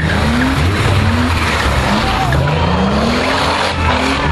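A BMW E30 being drifted in circles: its engine revs up in short rising surges, several times over, while the rear tyres spin and skid with a steady hiss.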